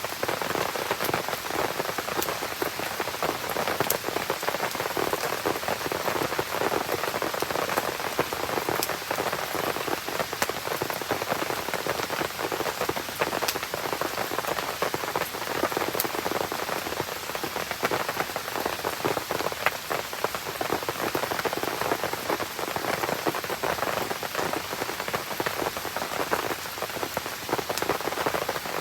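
Steady, dense rain pattering on surfaces, with a few scattered sharp pops and crackles from a campfire burning in the rain.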